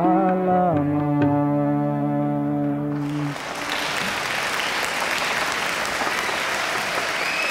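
Held instrumental notes end a song, shifting once to a lower note before stopping about three seconds in. An audience then applauds steadily.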